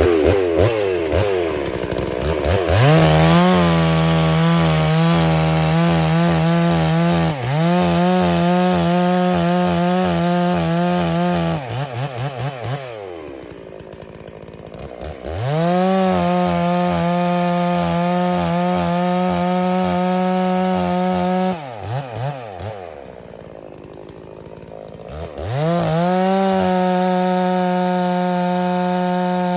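New Holzfforma G660 two-stroke chainsaw, a Stihl MS660 clone with a 28-inch bar, running at high revs while cutting red oak, with the engine note dipping slightly under load. Twice it drops back to idle for a few seconds and then revs up again.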